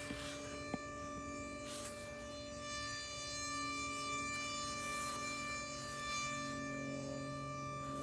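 Super Sirex outdoor warning siren sounding a steady tone of several fixed pitches during its test, with gentle swells in loudness. Its rotator is broken.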